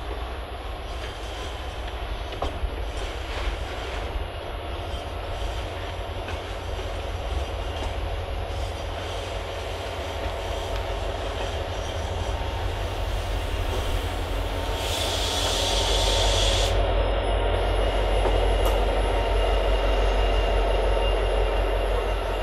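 Freight train passing through a station: wagon wheels rumbling and clicking over the rails, with a brief high wheel squeal about two-thirds of the way through. Near the end the diesel locomotive draws close and its engine makes the sound louder.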